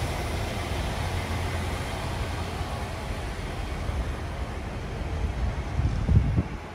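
Steady low rumble of road traffic and idling vehicles at an airport departures drop-off curb, with a brief louder low surge about six seconds in.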